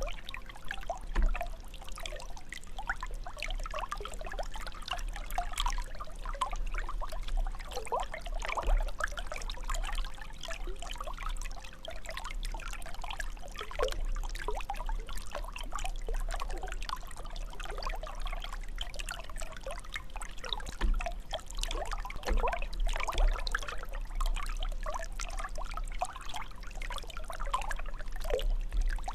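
Water jet of a fountain running steadily, with a continuous, uneven splashing of falling water.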